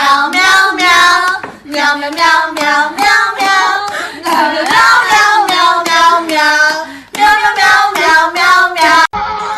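A high-pitched voice singing a tune in short phrases, cut off abruptly near the end.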